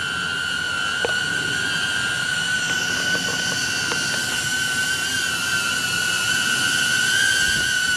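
HoverAir X1 mini drone's propellers whining at a steady high pitch, wavering slightly and growing a little louder near the end.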